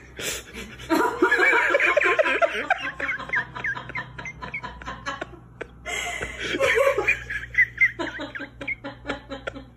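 A person laughing in three bouts of quick, pulsing laughter, the first and longest starting about a second in.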